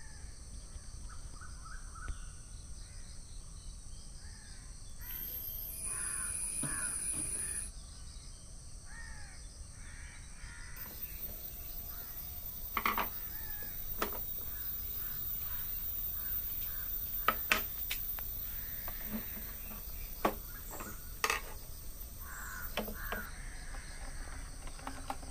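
Crows cawing in the background, short calls scattered throughout. Several sharp clicks and knocks are the loudest sounds, as the plastic lamp casing is handled and unscrewed.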